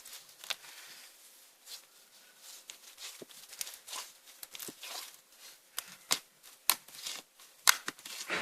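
Clear slime mixed with crushed magic sponge being squeezed and pulled by hand, giving irregular sticky pops and crackling clicks with a soft squishy hiss between them.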